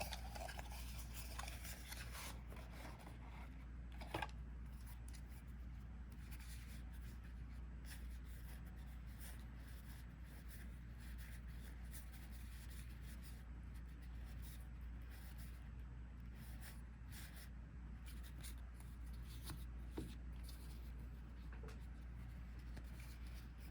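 Faint handling of trading cards, soft sliding and rubbing as they are sorted, over a steady low hum, with a couple of small clicks about four seconds in and again near twenty seconds.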